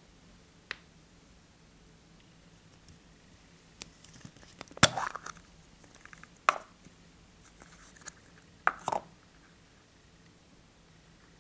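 Hollow plastic surprise-egg capsule handled and opened: scattered sharp plastic clicks and short rattles, the loudest snap about halfway through, with further clicks a little later and a double click near the end.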